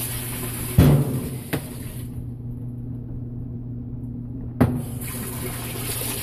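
Estate Whirlpool washing machine filling through its newly replaced water inlet valve: water rushes into the tub over a low steady hum, with a thump and a click as the control is switched over. The rush of water stops for about two and a half seconds, then comes back with a clunk as the cold-water side of the valve opens and cold water flows in.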